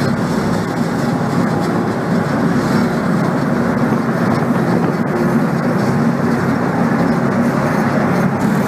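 Car ferry under way: its diesel engines run as a steady, loud rumble, mixed with water churning in the propeller wake.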